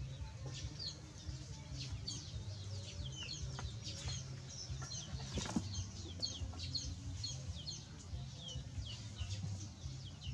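Birds chirping continuously, several short high chirps a second, over a steady low hum, with one sharp knock about halfway through.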